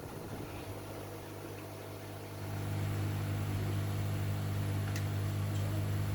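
Steady low electrical hum that gets louder about two and a half seconds in, with a couple of faint clicks near the end.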